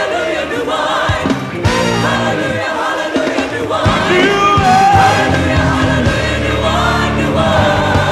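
Gospel choir singing with a live band.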